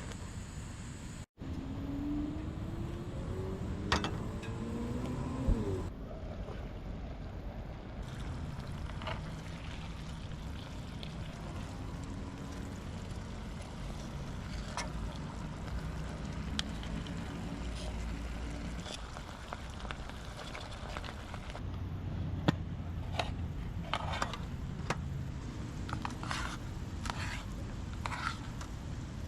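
A motor vehicle running with a steady low rumble, its engine pitch rising a few seconds in, and scattered clicks and knocks near the end.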